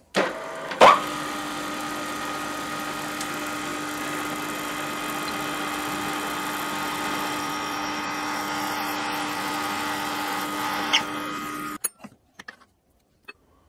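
Bench drill press running steadily with a constant whine while a twist drill bores a hole through a metal round bar. A sharp click comes about a second in, and the running sound cuts off suddenly near the end.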